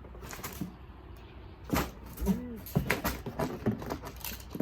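Knocks and clunks of household items being handled and moved around, with a short rising-and-falling pitched sound about two and a half seconds in.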